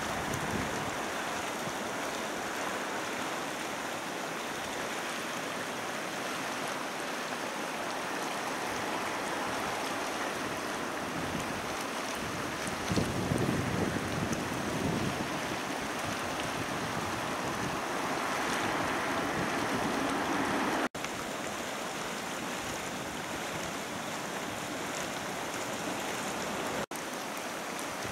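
Acidic hot spring pool churning and splashing: a steady rush of agitated water.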